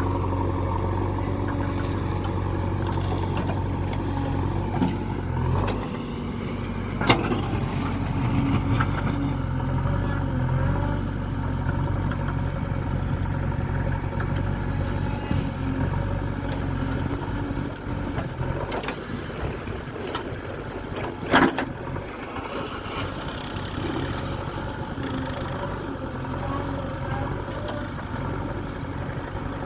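Diesel engine of a JCB 3DX backhoe loader running steadily while it works, its note shifting about six seconds in. There are sharp metallic clanks about seven seconds in and again about twenty-one seconds in, the second the loudest.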